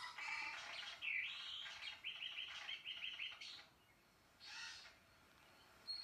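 Wild bird calls from a New Guinea nature documentary, played through a television's speaker. There is a swooping call about a second in, then a fast run of repeated notes, and a short burst of sound near the end.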